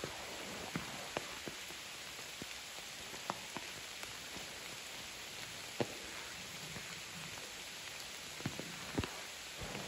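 Steady rain hiss with about a dozen individual drops ticking sharply and irregularly on a nearby surface.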